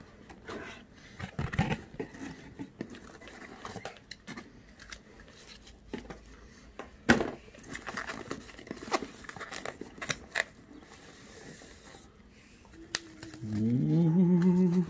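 Cardboard packaging of a camera box being handled: scattered rustling, scraping and tapping of the box flaps and inner tray, with one sharp click a little past seven seconds in. In the last second and a half a person makes a drawn-out wordless vocal sound that rises in pitch.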